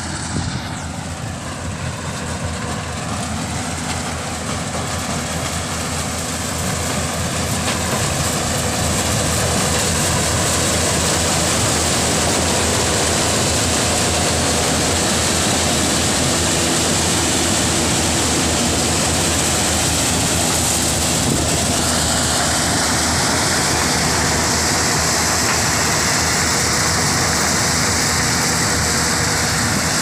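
Yanmar combine harvester running while harvesting corn: a dense, steady mechanical din of engine and threshing machinery that grows louder over the first ten seconds and then holds steady. A higher whine joins about two-thirds of the way through.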